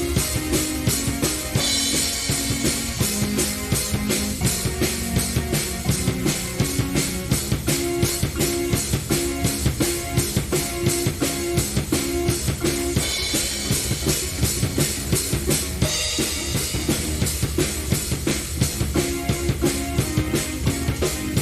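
Keyboard-and-drums prog rock jam: a drum kit plays a busy, driving beat on kick and snare under a repeating keyboard figure, with cymbal crashes near the start and again about two-thirds of the way through.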